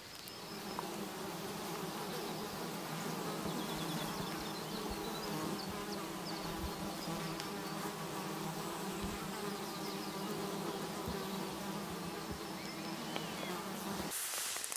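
An insect buzzing in a steady drone that cuts off about a second before the end.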